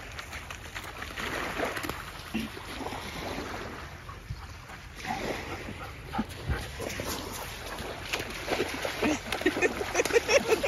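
Bernese Mountain Dog puppy whining in short repeated notes that come faster and louder near the end, with water splashing as it wades in the shallow surf.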